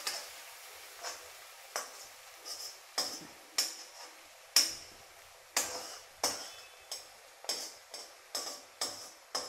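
Metal spoon clinking and scraping against a metal kadhai while stirring green chillies frying in oil: about a dozen sharp clinks, irregular, one or two a second.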